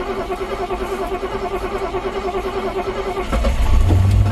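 Rover P6's 3.5-litre V8 cranking on the starter motor with a steady whine and an even pulse. About three seconds in it catches with a louder, deeper run that lasts about a second before dying away: a near start after the SU carburettors were cleaned of stale petrol.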